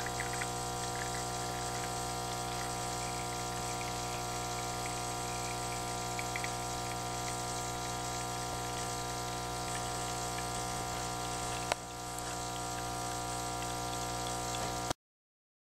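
Espresso machine's Ulka vibratory solenoid pump buzzing steadily as it pushes hot water at about 9 bar through the brewer while the shot pours. A single click comes about twelve seconds in, the buzz dips and builds back, then stops abruptly near the end.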